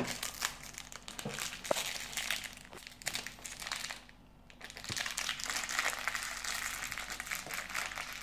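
Crinkly plastic toy wrapper being unwrapped by hand, a run of crackles and rustles with a short pause about four seconds in, then steady crinkling to the end.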